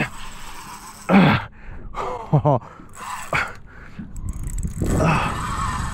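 A man's short wordless vocal sounds, like gasps and grunts, about a second, two and a half and three and a half seconds in, then a breathy stretch near the end, over a low steady rumble.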